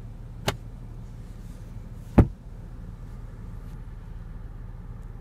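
Two plastic clicks from a car sun visor being handled, a light one about half a second in and a sharper, louder one about two seconds in, as the vanity mirror cover and visor are snapped shut, over a steady low cabin hum.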